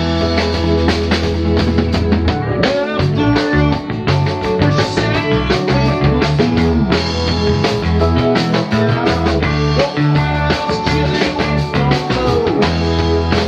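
Live rock band playing an instrumental jam: bass and drums under an electric guitar playing bending lead lines.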